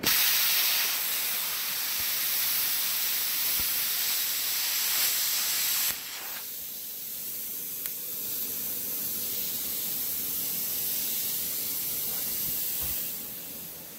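Everlast PowerPlasma 82i plasma cutter at 20 amps piercing and cutting 14-gauge sheet steel: a loud, steady hiss that starts suddenly, drops to a quieter hiss about six seconds in, and fades out near the end.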